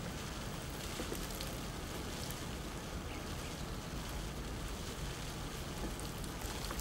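Water from a plastic watering can splashing and pattering steadily onto broad plant leaves and potting soil.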